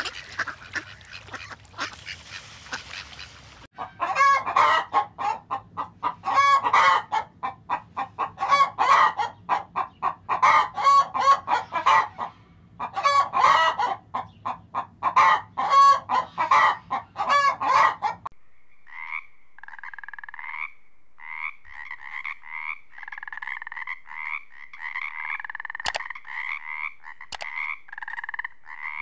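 Animal calls: a faint hiss at first, then loud, rapid, repeated pitched calls for about fourteen seconds. These give way to a steady chorus of many overlapping pulsed calls.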